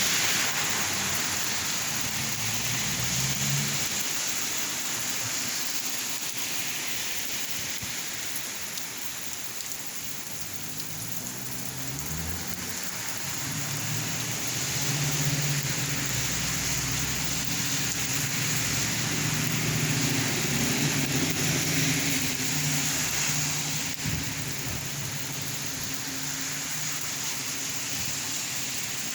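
Steady rain falling and splashing, a continuous hiss. About halfway through, a low drone comes in underneath and fades out again before the end.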